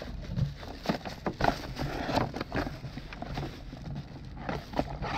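Irregular clicks, knocks and rustling as a new oil filter and its packaging are handled.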